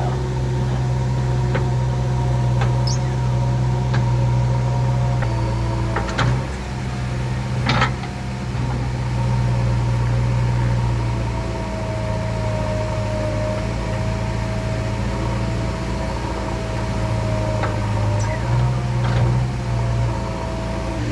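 JCB 3DX backhoe loader's diesel engine running under working load, its note shifting every few seconds, with a steady whine over it. Two sharp clanks sound about six and eight seconds in.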